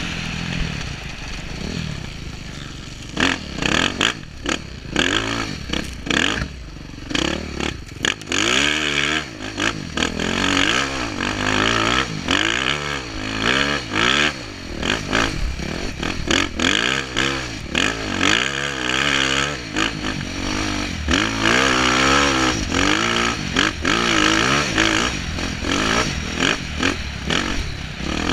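Dirt bike engine ridden hard, its pitch rising and falling over and over as the throttle is worked through the gears, heard from a helmet-mounted camera. Frequent short rushes of noise break over it.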